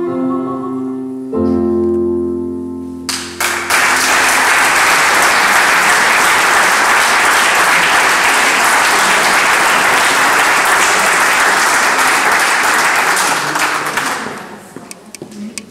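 A small classical chamber ensemble ends a piece on two long held chords, the second with a low bass note underneath. About three seconds in, audience applause breaks out, runs steadily, and dies away near the end.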